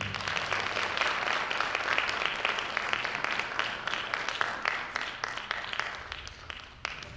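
Audience applauding, slowly dying down and thinning to a few last scattered claps near the end.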